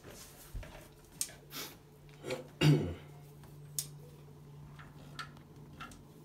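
Scattered light clinks and knocks, with one louder bump about two and a half seconds in, as an inspection camera's cable is worked by hand through the water into a clogged toilet's drain.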